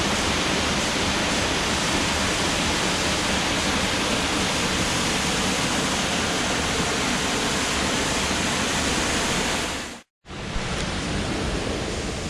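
Waterfall close up: a loud, steady rush of falling water and spray. About ten seconds in the sound cuts off for a moment and comes back as a quieter, duller rush of water.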